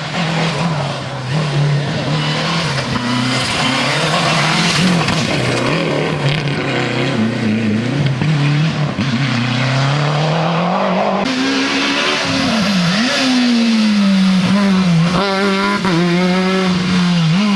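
Rally car engine at full effort on a special stage, its pitch rising and dropping again and again through throttle lifts and gear changes. The sound changes abruptly about eleven seconds in, after which the engine note climbs and falls in quicker swings.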